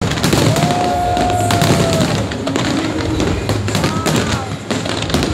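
Aerial fireworks bursting in quick succession: a dense, continuous run of bangs and crackles from many shells going off at once.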